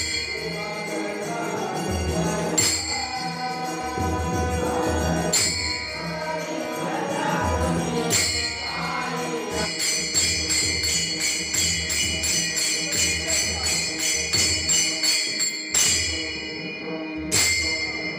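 Warkari bhajan music: a group singing with hand cymbals (taal) and a drum beating under them, with loud cymbal clashes every few seconds. From about ten seconds in the singing gives way to a fast, even beat of cymbal strokes, about three to four a second.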